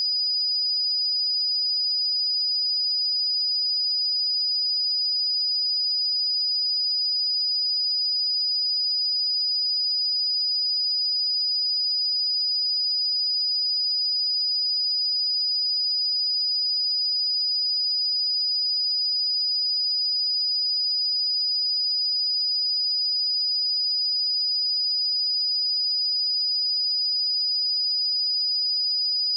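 A pure 4943 Hz sine-wave test tone, a single steady high-pitched whistle held at constant level.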